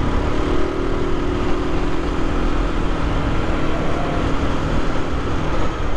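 Aprilia RS 125's single-cylinder four-stroke engine running at a steady cruising speed, with wind rushing over the microphone. Its note eases off near the end.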